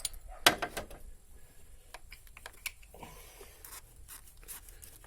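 Sharp metallic clicks and knocks with light scraping, the loudest about half a second in, as a Bosch common-rail diesel injector is rocked loose with a wrench and pulled from its bore.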